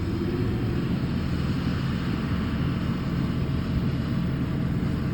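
Combine harvester engine running steadily: a low, even mechanical drone.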